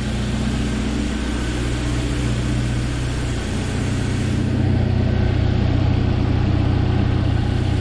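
Freshly rebuilt Jeep Wrangler 2.5-litre four-cylinder engine idling steadily and smoothly, with the light clicking of its fuel injectors, like a little sewing machine. About halfway through the sound turns a little louder and duller.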